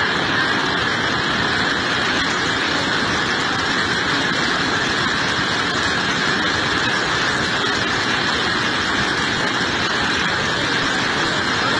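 Steady roar of a muddy flash-flood torrent rushing over rocks.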